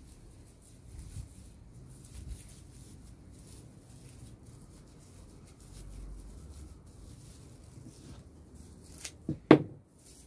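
Dry raffia fibres rustling and crackling faintly as hands tie small bows. About nine seconds in come three sharp, loud snaps or knocks, the loudest sound here.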